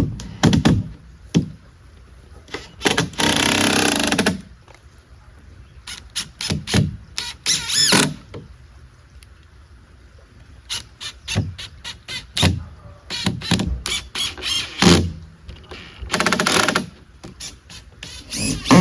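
Woodworking on lumber: repeated knocks and thuds of boards being handled and fitted, with three short runs of a noisy tool, one with a squealing, gliding pitch near the middle.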